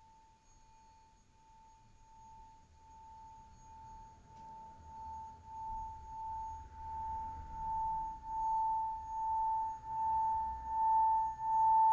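Singing bowl being rimmed, ringing one steady tone that swells steadily louder with a slow wavering pulse about once a second.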